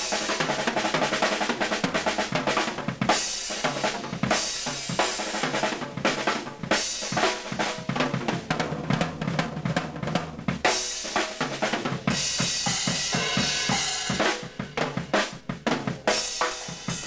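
Drum kit being played in a studio: rapid snare and bass drum hits under a steady cymbal wash, with short fills.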